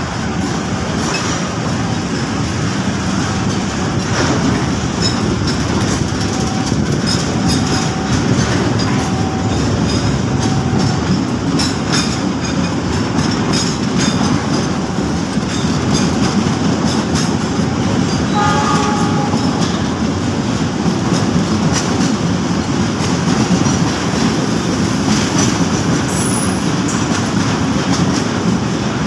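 Fuel tank wagons of a freight train rolling past on the adjacent track. A steady rumble runs throughout, with the wheels clicking over rail joints.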